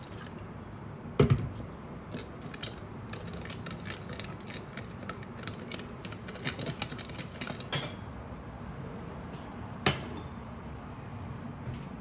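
Wooden spoon stirring sauce in a ceramic bowl, clicking and scraping against the bowl's sides for several seconds. There is a sharp knock about a second in and another near the end.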